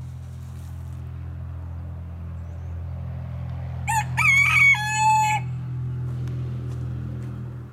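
A rooster crows once, about four seconds in: a few short broken notes, then a held final note, lasting about a second and a half. A steady low hum runs underneath.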